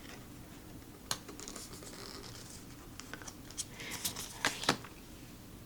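Tarot cards being handled: light rustling of card stock with a few sharp clicks and snaps as cards are flipped over, most of them in the second half.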